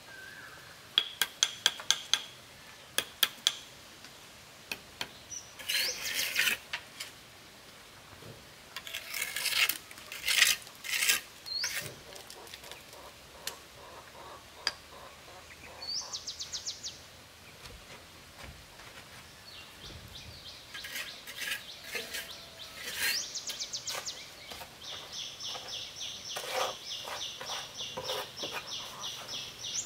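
Sharp taps and clicks, then several rough scraping strokes, with short rising bird chirps between them. About 25 seconds in, an insect's steady high pulsing buzz starts.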